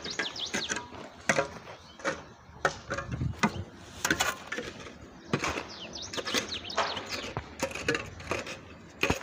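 Metal shovel scraping and knocking against dry, stony soil: an irregular series of sharp clicks and scrapes. Short high chirps come in quick groups near the start and again a little past the middle.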